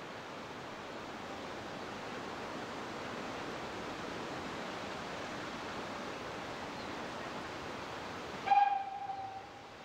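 A steady rushing noise, then near the end a short blast of a steam locomotive whistle lasting about a second, the loudest thing heard.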